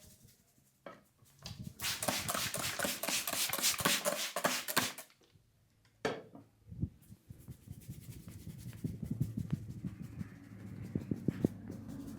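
Barber's hands working vigorously over a client's head during a head massage: a few seconds of fast, brisk rubbing or striking on the hair and scalp, a short pause, then slower, softer rubbing with occasional sharper pats.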